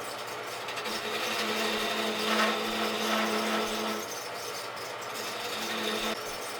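Rockwell wood lathe running with a steady motor hum while a turning tool cuts the spinning wooden bat blank. The scraping of the cut swells from about one to four seconds in and again briefly near the end, as the tool bears in.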